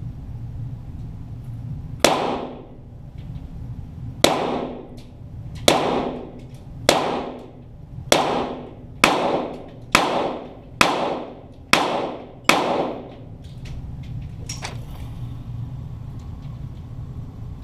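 .22 rimfire Walther GSP target pistols firing ten shots at an uneven pace, heard from beside the targets. Each shot has a short echoing tail.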